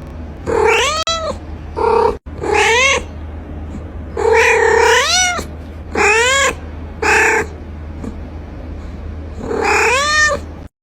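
A cat meowing repeatedly: about seven drawn-out meows, each rising and then falling in pitch, the longest one a little before the middle.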